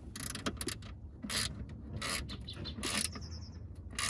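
A hand screwdriver driving screws into the plastic lower steering column cover: short rasping, ratchet-like strokes, roughly one a second at uneven spacing.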